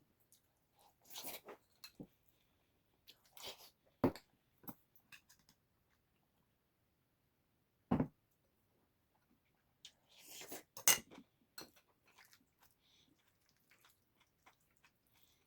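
Scattered mealtime handling sounds: short rustling, crunching noises with sharp clicks, and a single dull knock about eight seconds in, like a dish or utensil set on the table.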